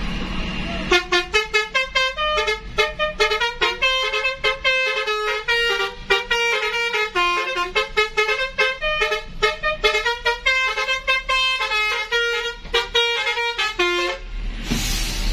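Telolet horn, a set of multi-tone air horns, playing a quick tune of short notes for about thirteen seconds, followed by a short burst of hiss near the end.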